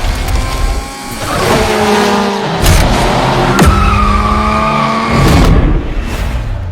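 Car sound effect: an engine revving up and down with tyres squealing in a skid. Two sharp knocks come a second apart near the middle.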